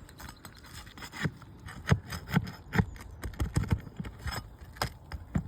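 Asphalt roof shingles being worked loose and handled: irregular scraping with about a dozen sharp knocks and clicks, most of them in the middle of the stretch.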